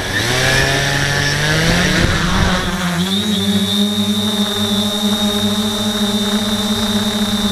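X650F quadcopter's electric motors and propellers spooling up, rising in pitch over the first three seconds as it lifts off, then holding a steady drone with a high whine as it climbs, heard from the craft's onboard camera.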